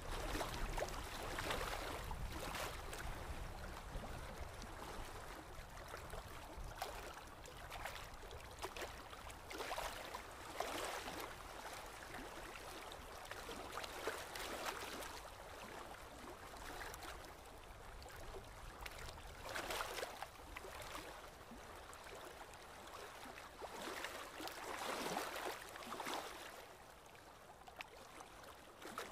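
Small waves lapping and splashing against a concrete seawall, swelling and easing every few seconds, over a steady low rumble.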